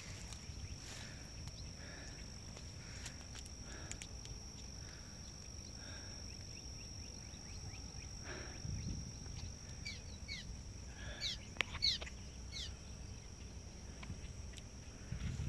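Outdoor ambience beside a rain-swollen, flooding creek: a low steady rumble with a thin steady high-pitched whine over it. About ten seconds in, a bird chirps several times in quick succession.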